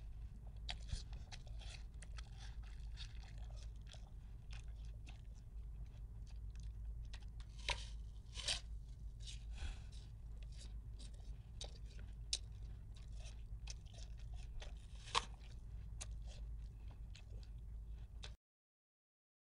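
Irregular crunching and crackling: a dense run of small sharp crackles with a few louder snaps over a low steady hum. It cuts off to dead silence near the end.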